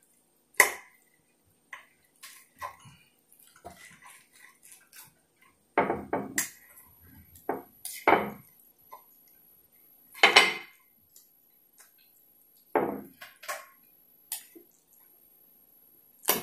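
Knife and fork cutting through a well-done grilled T-bone steak, the metal cutlery scraping and clinking against a ceramic plate in irregular sharp clicks.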